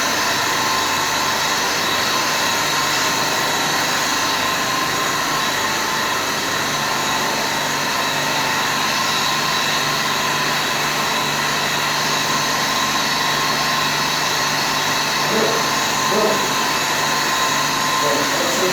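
Machinery running steadily: an even whir with a constant hum and several fixed whining tones, unchanging throughout. Faint voices come in briefly near the end.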